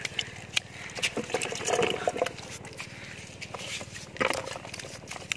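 Plastic jar fish trap being handled at the water's edge: scattered clicks and crinkles of the plastic with a little water movement. A faint short tone about two seconds in, and a brief louder rustle just after four seconds.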